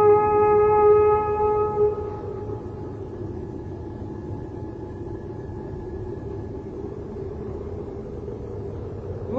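A long held droning note, rich in overtones, ends about two seconds in and leaves a low rumbling hum. Right at the end a new note slides up and settles at a fresh pitch.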